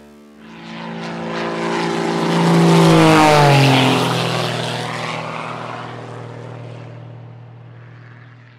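A propeller aircraft flying past. The sound swells to its loudest about three seconds in, its pitch drops as it goes by, and then it fades away.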